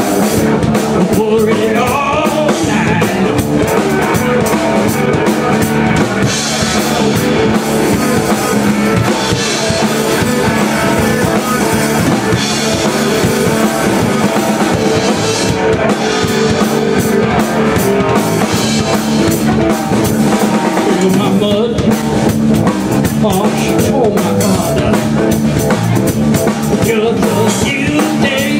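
Rock band playing live, loud and steady: a drum kit driving a blues-rock groove under electric guitars.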